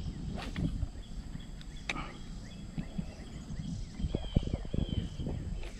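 Low rumble of wind and handling noise on the microphone, with a single click about two seconds in and a quick run of knocks and clicks a little later, under faint high bird chirps.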